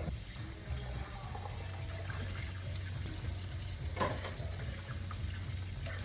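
Water running steadily from a tap into a sink, with a short knock about four seconds in.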